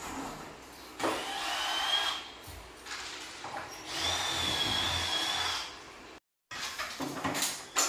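Cordless power drill running in two bursts of about a second and a half each, a steady high whine. It is followed near the end by a few knocks and clatter.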